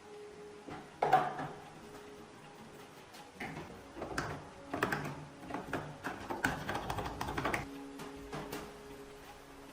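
A quick irregular series of clicks and knocks from hard objects being handled, the loudest about a second in, stopping near the end, over a faint steady tone.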